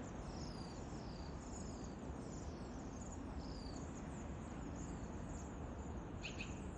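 Several small songbirds chirping and singing, with many short high notes, some sliding downward, overlapping throughout, over a steady low background noise.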